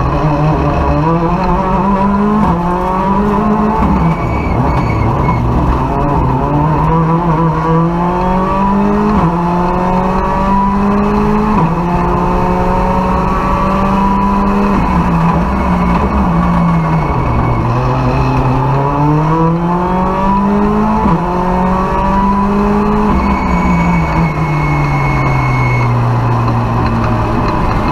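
Ford Fiesta R5 rally car's turbocharged 1.6-litre four-cylinder engine heard from inside the cockpit, driven hard. Its pitch climbs through the gears with short drops at each shift, and twice it falls away in a long slide before pulling up again.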